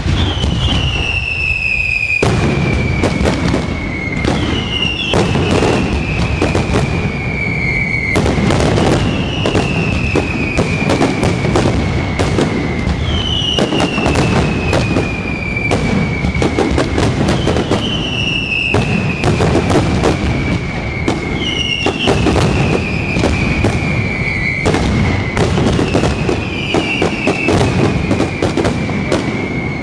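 Fireworks display in a dense, continuous barrage: steady crackling and bangs, with a whistle falling in pitch over about two seconds heard again and again.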